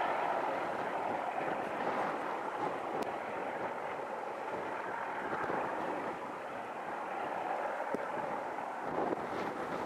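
Diesel-hauled train heard in the distance, a steady rumble slowly fading as it moves away down the line.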